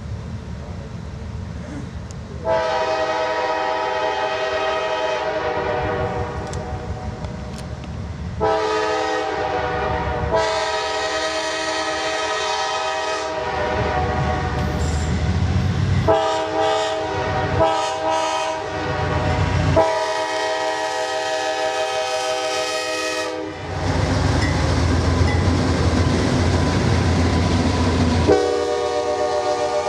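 Diesel freight locomotive's multi-note air horn blowing the grade-crossing signal, long, long, short, long, as the train approaches. After that comes the low rumble of the train running past, with wheels clattering on the rails. The horn sounds again near the end.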